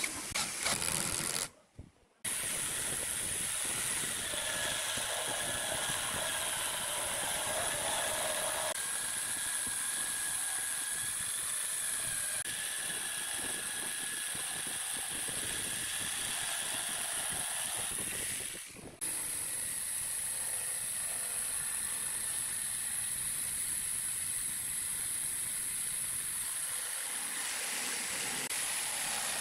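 Jigsaw cutting a pine board: a steady motor whine with the hiss of the blade sawing, running without letting up apart from a short break about two seconds in and a brief dip partway through.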